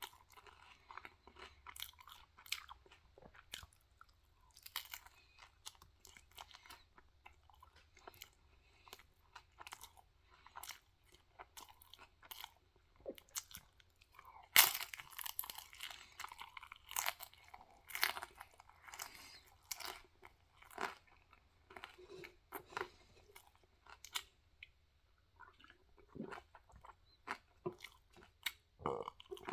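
Close-up chewing of a crispy fried chicken taquito: crunching and wet mouth sounds, with the loudest crunch about halfway through.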